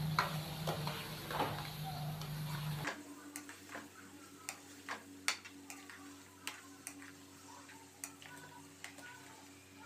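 Spatula stirring wet chicken masala in a nonstick wok, tapping and scraping the pan in a series of light, irregular clicks. A low background hum stops about three seconds in.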